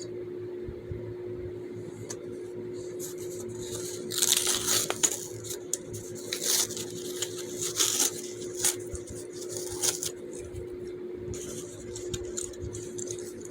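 Small hard fidget toys being handled, clinking and clattering in short clusters from about four seconds in, over a steady hum.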